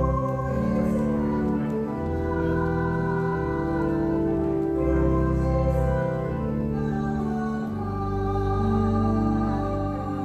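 A slow church hymn sung with keyboard accompaniment: long held notes over a steady sustained bass.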